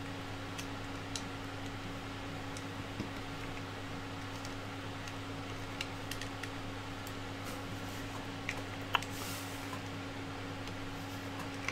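Small, sparse clicks and taps of an Allen key and a 3D-printed plastic idler body being handled as an axle is forced into it, over a steady low hum; one sharper click comes about three-quarters of the way through. The axle is a tight fit and goes in only with difficulty.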